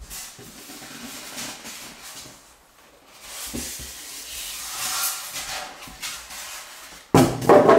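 Foam packing and cardboard box rustling and scraping as an iMac G4 is lifted out of its carton, with a sudden loud bump near the end.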